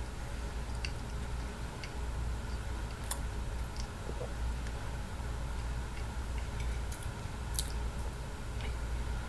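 Someone eating a warmed Twinkie: scattered soft mouth and handling clicks at irregular intervals over a steady low hum.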